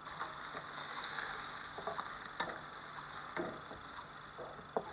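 Chicken pieces in sauce sizzling in a frying pan while being stirred with a wooden spatula, with a few light taps and scrapes of the spatula against the pan.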